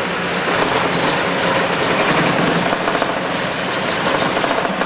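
Geo Metro's gasoline engine idling steadily just after a valve has cut off its fuel supply, still running on the fuel left in the line before it stalls.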